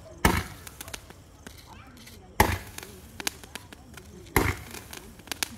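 A Sivakasi 30-shot 'Peacock Dance' fireworks cake firing: three sharp shots about two seconds apart, each fading quickly, with smaller pops between them.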